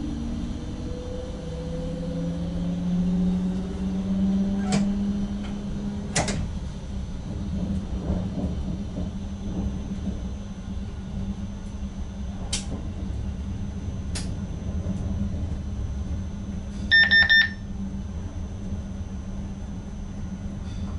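Inside the cab of an ICM electric intercity train under way: a steady low hum and rumble, with a whine rising in pitch over the first few seconds as it picks up speed, and a few sharp clicks. About 17 seconds in, a short rapid run of electronic beeps sounds in the cab.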